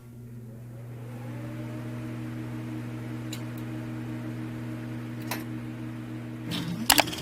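A small electric motor hums steadily, rising slightly as it spins up, then stops about six and a half seconds in, followed by two sharp clicks.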